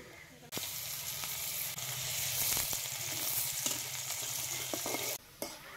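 Chopped onion sizzling in hot oil in a wok, stirred with a metal spatula, with a few light scrapes and clicks of the spatula. The sizzle sets in about half a second in and cuts off shortly before the end.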